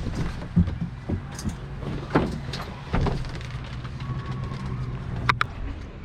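Knocks and thuds of gear being handled and loaded, over a steady low vehicle rumble that stops about five seconds in. A sharp click with a brief ring comes shortly before the end.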